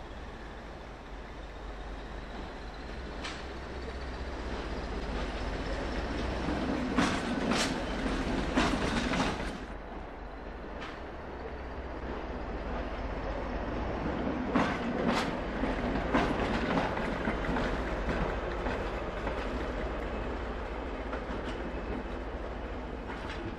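Class 20 diesel-electric locomotive running light at low speed, its English Electric diesel engine running steadily. Two bunches of sharp wheel clicks, over rail joints and pointwork, come about a third of the way in and again past the middle.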